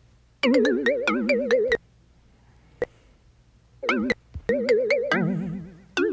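A voice clip put through synth and tremble voice effects plays back. Its pitch wobbles fast and evenly, in short bursts with gaps between them. A single click comes about halfway through.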